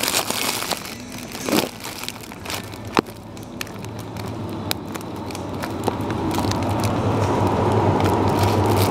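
Clear plastic film crinkling and crackling right against the microphone, with sharp clicks in the first three seconds. From about four seconds in, a steady rushing noise with a low hum builds up and grows louder.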